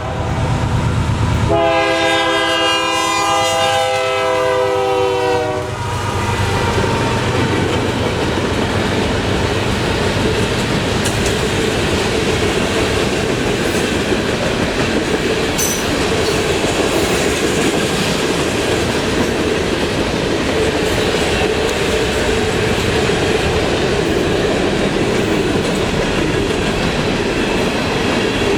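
Norfolk Southern freight train at a grade crossing: the locomotive's air horn sounds a long chord-like blast until about six seconds in, then the train rolls steadily past, its wheels clattering over the rails.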